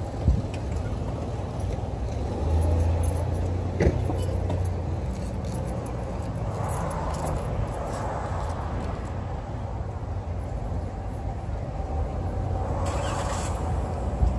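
Road traffic: a steady low rumble with cars passing on the nearby road, swelling about seven and thirteen seconds in. There are two short sharp clicks, one at the very start and one about four seconds in.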